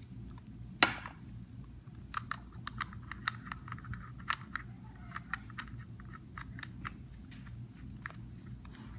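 Irregular small clicks and taps from a vape box mod and its tank being handled, one louder click about a second in and a quick scatter of them after that, over a steady low hum.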